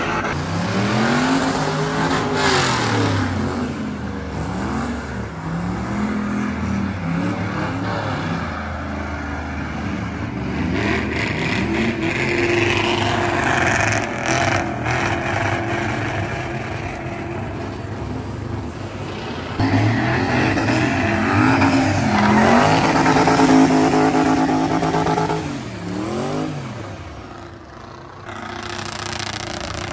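Pickup truck engines revving up and down over and over as the trucks drift and do donuts, with tire noise from the spinning rear wheels. About twenty seconds in, one engine is held at high revs for several seconds before the sound drops briefly near the end.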